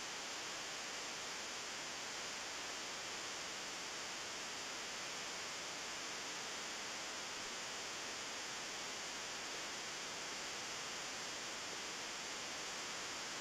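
Steady, even hiss with no other sound standing out.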